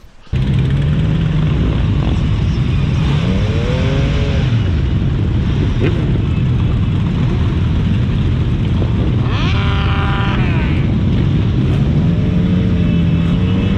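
Motorcycles running on the road: a loud, steady rushing noise with an engine note that rises and falls. About ten seconds in, a brief falling higher tone sounds over it.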